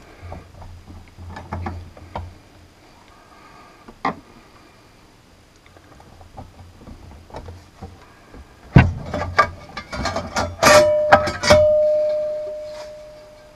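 The metal bottom cover of a Kenwood TS-50 transceiver being lifted off and set down: a few light clicks, then a loud knock about nine seconds in, a quick clatter, and the sheet metal ringing with one steady tone that dies away over about two seconds.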